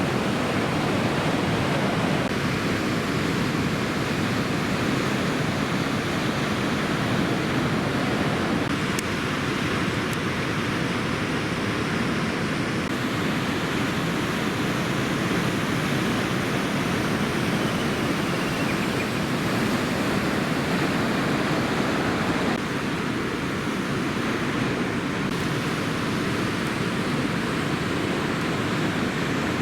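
Steady rushing roar of heavy typhoon-swell surf, its tone changing abruptly a few times where separate shots are joined.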